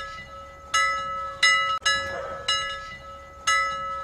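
Intro jingle of bell-like chime strikes: four sharp, ringing strikes, each fading before the next, over a steady held tone.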